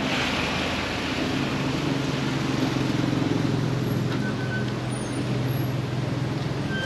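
A motor vehicle's engine running steadily, a low even hum with road and traffic noise around it.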